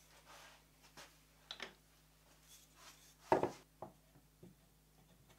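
Wooden pieces handled on a workbench: a glued wooden strut is picked up and set into the stool frame, giving a few light knocks and scrapes, the loudest a bit past three seconds in.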